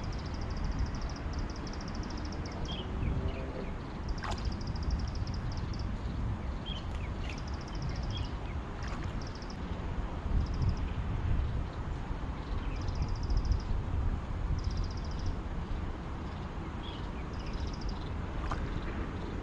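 Wind rumbling on the microphone in the open air. Over it, a high, rapid chirping comes in short bursts every second or two.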